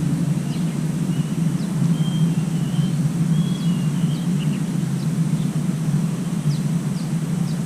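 Small birds chirping and whistling in short, scattered notes over a steady low rumble.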